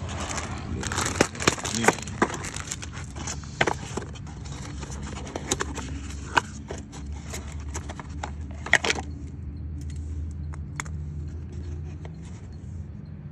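Cardboard box and plastic packaging being handled, with rustling, scraping and small clicks and clinks of a new replacement carburetor and its gaskets and metal parts. The handling is busiest in the first nine seconds and turns sparse after, over a steady low hum.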